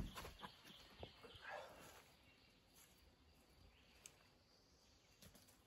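Near silence outdoors, with a sharp click at the start and a few light clicks and a soft rustle in the first two seconds.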